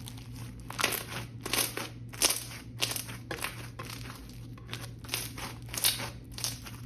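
Slime being squished and pressed by hand, giving irregular crackling pops and clicks, a few each second.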